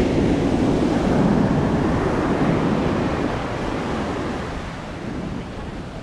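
Ocean surf: a wave breaks and its wash rushes up the sand, loudest over the first couple of seconds and then slowly easing off.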